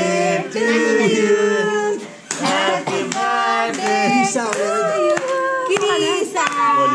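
Several voices singing a song together, joined about two seconds in by steady hand clapping in time, about three claps a second.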